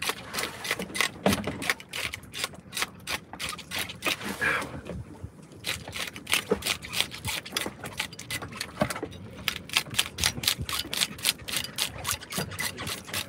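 A fish scaler scraping scales off a large fish in rapid, rasping strokes, several a second, with a short pause about five seconds in.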